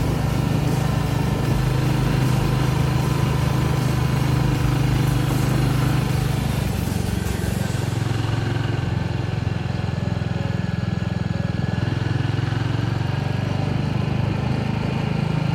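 Motorbike engine running steadily while riding. A high hiss over it fades out about halfway through.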